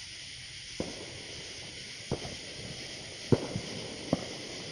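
Firecrackers going off in five sharp, irregular bangs, the loudest about three seconds in, over a steady high hiss.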